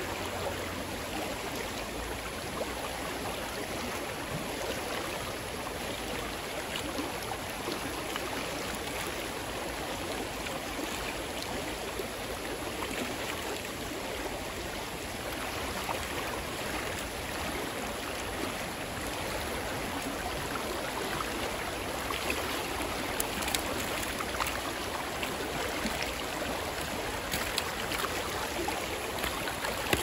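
Creek rapids rushing steadily over a shallow rocky bed, with a few short clicks and splashes in the last several seconds.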